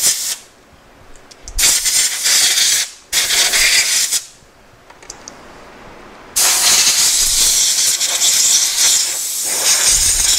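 Compressed air hissing from an air compressor's blow gun as it blows sanding dust out of scroll-sawn fretwork: two short blasts of about a second each, then a long steady blast through the second half.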